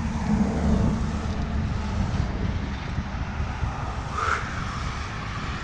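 Steady low rumble of wind buffeting the microphone of a camera carried on a moving bicycle, in strong wind, mixed with road noise. A brief swish about four seconds in.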